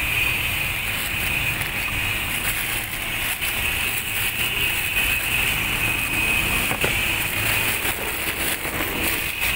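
Plastic wrapping crinkling in short bursts as a piston is handled inside a cardboard box, over steady background noise with a constant high-pitched hum.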